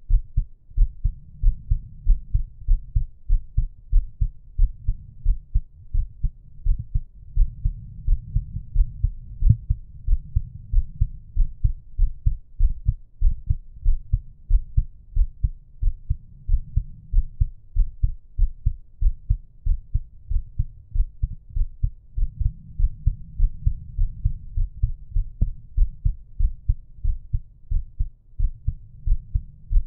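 A person's heartbeat at rest, a steady, even rhythm of low, muffled thuds.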